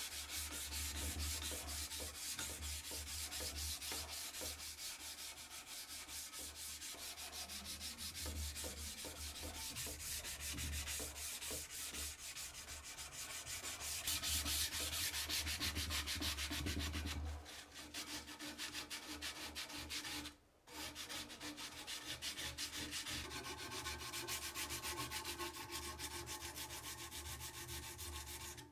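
Sandpaper being rubbed by hand along a steel kitchen knife blade in quick back-and-forth strokes, a continuous scratchy rasping, broken by a couple of brief gaps between shots.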